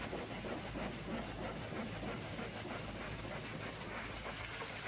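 High-pressure washer lance spraying water against a tanker trailer's steel body and chassis: a steady hiss with a low hum underneath.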